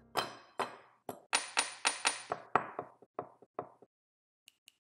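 Rapid series of sharp metallic clinks and knocks with a ringing edge, about four a second, typical of aluminium parts being set down on a wooden table. They stop shortly before the end, and light, evenly spaced ticks begin.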